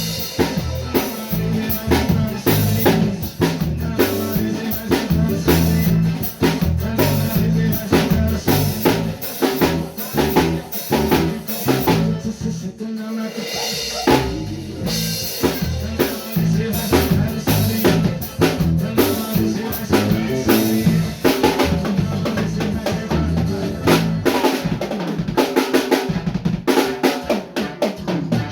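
Bass guitar and drum kit playing a song together: the bass moves in short stepping notes under steady kick, snare and rimshot hits, and the bass drops out briefly about thirteen seconds in.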